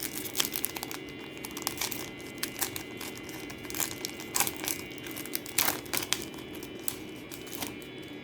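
Plastic trading-card pack wrapper being torn open and crinkled by hand: irregular crackles and rustles throughout.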